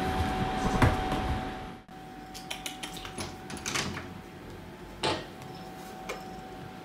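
A steady hiss with a faint steady tone, cut off suddenly about two seconds in, then a quieter room with scattered light taps and clicks and one sharper knock about five seconds in.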